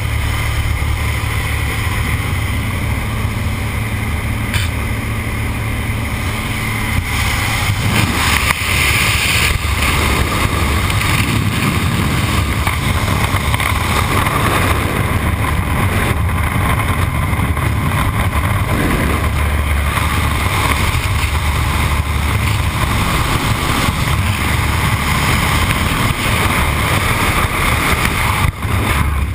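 Light aircraft engine and wind rushing past an open jump door, loud and steady; the rush of wind grows louder about eight seconds in and briefly dips just before the end.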